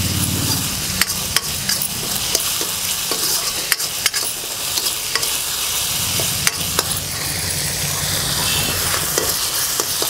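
Metal spatula stirring and scraping in a metal kadhai as ground coriander and whole spices fry in oil on high heat: a steady sizzle with frequent clicks of the spatula against the pan.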